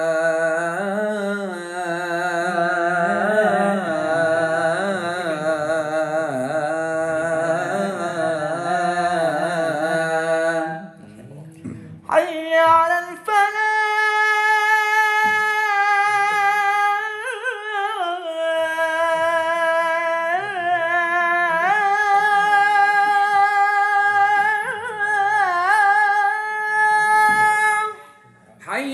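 Men singing the adhan (Islamic call to prayer) unaccompanied in the slow, melismatic Makkah style. A lower voice sings with quavering ornaments until about 11 s in. After a short break a second, higher voice holds long drawn-out notes with turns.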